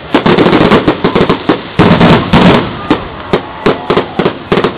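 Aerial fireworks bursting: a fast, dense run of overlapping bangs and crackles for the first two and a half seconds or so, then sparser single bangs.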